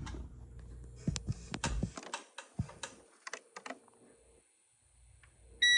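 Clicks and knocks as a UPS's plug is handled and pulled out; a low hum stops about two seconds in. Near the end the UPS starts a high beep, its alarm that it has gone onto battery power.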